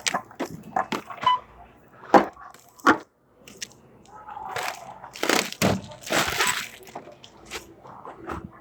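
Several sharp knocks and clatters, then a few seconds of rustling, like items being handled.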